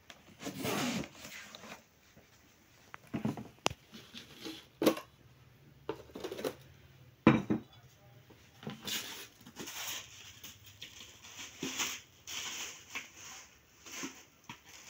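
A boxed cake set being unpacked by hand: rustling of the box and its packing, broken by scattered knocks and clinks of crockery. The loudest is a sharp knock about seven seconds in, as the plate is set down on the table.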